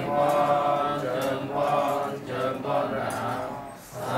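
Buddhist devotional chanting in a low male voice, sung in drawn-out phrases with short breaks between them.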